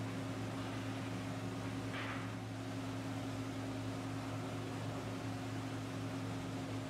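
Steady machine hum holding two even low tones, with a brief hiss about two seconds in.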